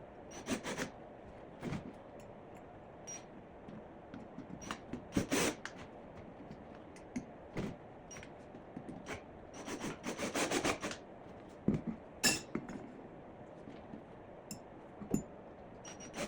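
Hand work on wood: irregular short knocks, rubs and scrapes, with a quick run of rasping strokes about ten seconds in and a couple of sharp knocks just after.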